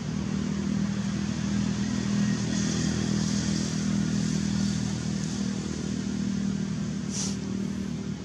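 Steady low motor hum, like an idling engine, with a brief high-pitched chirp about seven seconds in.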